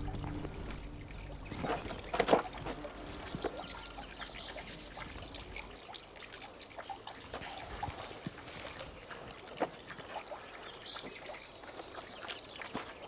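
Faint outdoor ambience with a soft trickling hiss and a few light rustles and footfalls on dirt, the loudest about two seconds in. The tail of the film score dies away in the first second.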